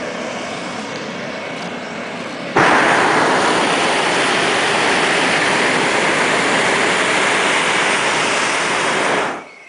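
Hot air balloon's propane burner firing: a loud, even rushing noise that starts suddenly about two and a half seconds in, runs steadily for nearly seven seconds, and cuts off just before the end, over a quieter steady hiss.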